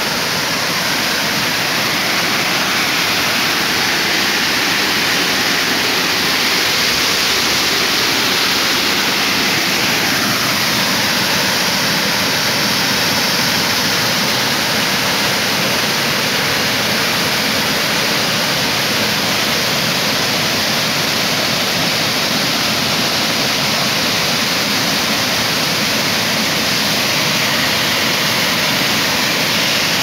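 Small waterfall: white water pouring over rock ledges makes a steady, loud rush that does not change.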